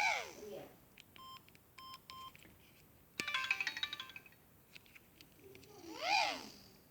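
Samsung SGH-X210 mobile phone playing several short electronic ringtone snippets one after another: a swooping up-and-down tone at the start, a few short beeps, a quick burst of notes about three seconds in, and another swooping up-and-down tone near the end.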